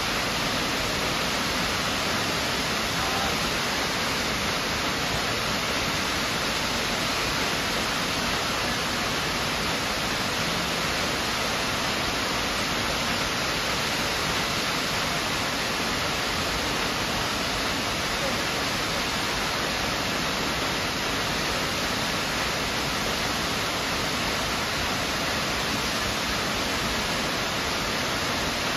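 Miners Falls, a tall waterfall plunging into a rock gorge, giving a steady, even rush of falling water.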